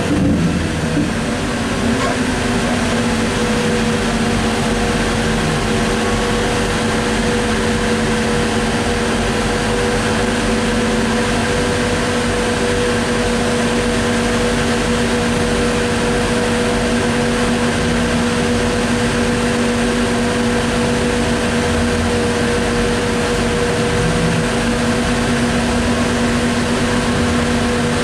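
Inside a ZiU-683B articulated trolleybus under way: a steady electric hum with two constant tones, one low and one an octave above, over the even rumble of the ride.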